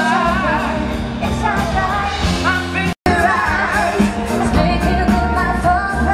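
Live band playing pop-rock through loudspeakers, a lead singer's voice over a steady beat and guitar. The sound drops out for an instant about halfway through.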